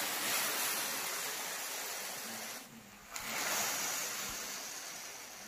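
Cold sugar syrup ladled onto hot-from-the-oven baklava, sizzling and hissing as it soaks into the pastry. The hiss drops away briefly a little under three seconds in, then starts again sharply with the next pour and slowly fades.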